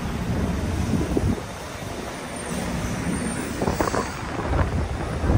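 Busy city street: steady low traffic rumble with wind noise on the microphone, and a few brief pitched sounds about four seconds in.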